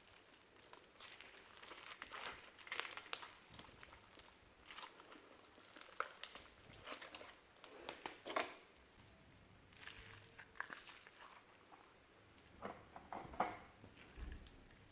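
Hands squishing and mixing old slime: faint, irregular sticky crackles and squelches.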